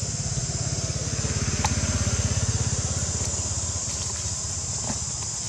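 Motorbike engine passing on a nearby road, swelling to its loudest near the middle and then fading away.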